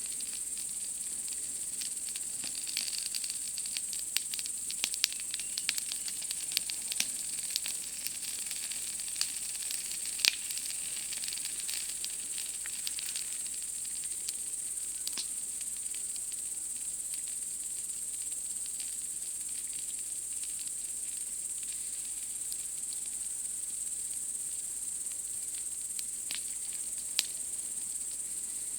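Campfire crackling with scattered sharp pops, denser in the first half, the loudest about ten seconds in and another near the end, over a steady high-pitched chorus of night insects.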